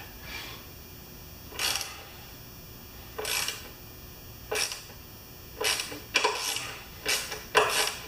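Socket ratchet clicking in short strokes, about eight quick bursts that come closer together toward the end, as a tight bolt on a lawn mower's Briggs & Stratton engine is worked loose a little at a time.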